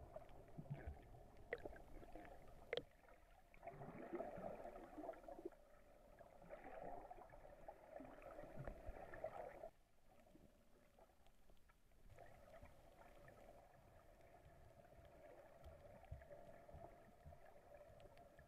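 Faint, muffled underwater ambience with a few sharp clicks early on and louder noisy stretches. It drops away suddenly about halfway through, then continues quieter and steadier.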